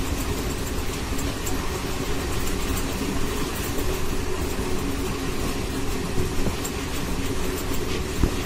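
Express passenger train running steadily: a continuous rumble with a steady low hum.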